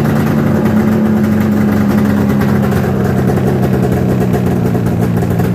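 1995 700 two-stroke snowmobile engine running steadily on choke just after a cold start; it has just fired up on a new coil pack.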